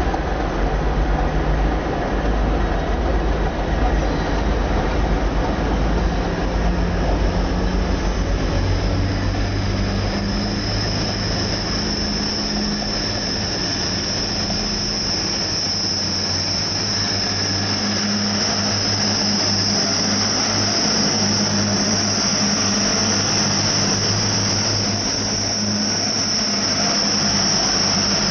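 Train running with a steady low engine hum; a high-pitched whine comes in about a third of the way through and grows stronger.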